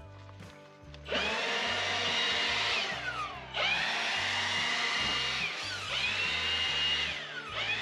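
Handheld electric power tool motor running in repeated bursts. Each burst spins up with a rising whine, runs steadily for a second or two, then winds down, and this happens several times over background music with a steady beat.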